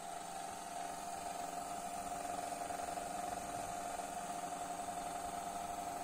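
A 1920 AEG Radiopur hair dryer's electric motor and fan running: a steady whir with a high-pitched hum, growing a little louder over the first two seconds.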